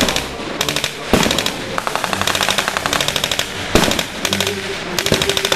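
Automatic gunfire from blank-firing weapons in a WWII battle reenactment: several rapid bursts of shots at about ten a second, with short pauses between bursts.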